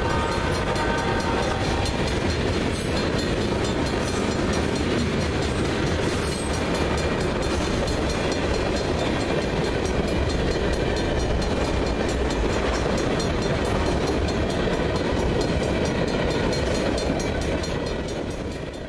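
Freight train cars rolling steadily past at close range. Tank cars and boxcars make a continuous rumble of steel wheels on rail.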